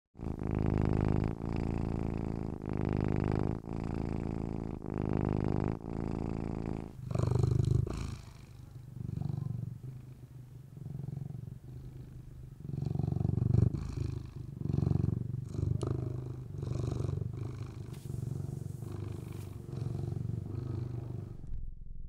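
Domestic cat purring close to the microphone: a low rumble that swells and eases with each breath, about every second and a half. About seven seconds in it changes to a quieter, less even purr.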